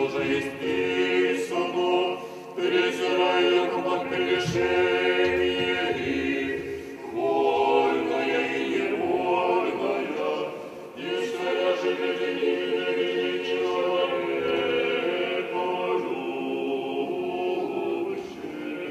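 Small a cappella choir singing the chant of an Orthodox memorial service (panikhida), in long held phrases with brief pauses between them.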